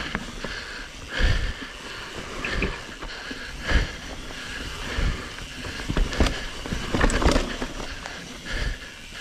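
A mountain bike rolling down a dirt singletrack: steady tyre and trail noise, with irregular knocks and rattles as the bike hits bumps.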